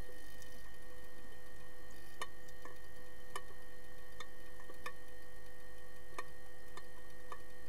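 Underwater sound in a pool during an underwater hockey game: irregular sharp clicks, roughly one every half second to a second, from sticks and the puck striking the tiled pool floor. They sit over a steady hum with a few fixed tones.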